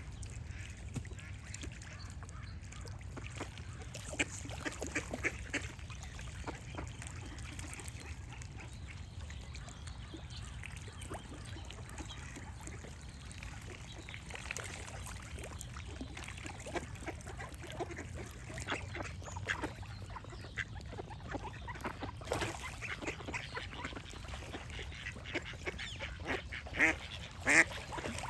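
Ducks quacking on and off, with a louder run of quacks near the end, over a steady low background rumble.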